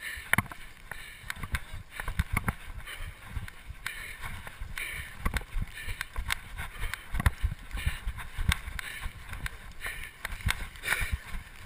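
A metal chariot frame bouncing over rough grass as it is pulled at a run: an irregular stream of knocks, rattles and jolts, with running footsteps.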